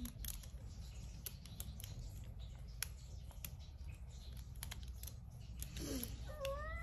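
Irregular light clicks and taps, then a cat's short meow near the end.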